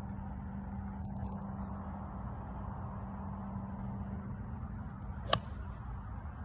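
A single sharp crack of an 8-iron striking a golf ball on a par-3 tee shot, about five seconds in, over a steady low background hum.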